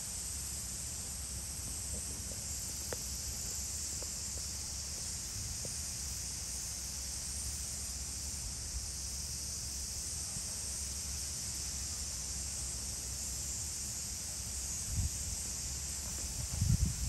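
Steady outdoor ambience: an even high hiss over a low rumble, with a few faint ticks early on and a couple of louder low bumps near the end. No pheasant call is heard.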